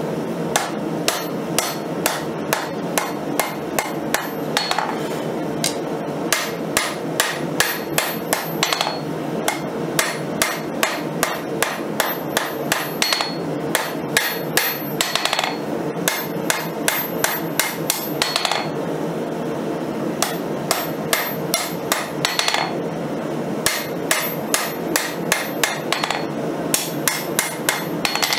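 Hand hammer striking red-hot 5160 leaf-spring steel on an anvil, drawing out and tapering a Bowie blade's tip. Blows fall at about two a second in runs with brief pauses, many with a short metallic ring, over a steady background noise.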